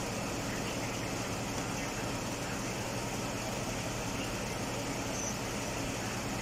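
Mazda CX-9 engine idling steadily with the air-conditioning system running while refrigerant is charged in through manifold gauges.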